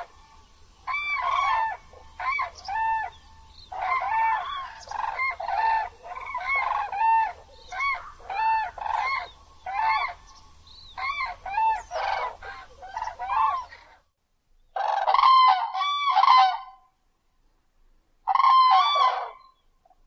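Grey crowned cranes giving a run of honking calls, short arched notes repeated in quick succession. The calls stop about two-thirds of the way in, then come back in two short bursts near the end.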